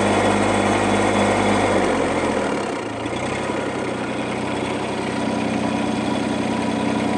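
A mini excavator's engine runs steadily. About two seconds in its note changes and dips slightly in level, then it settles and runs steadily again.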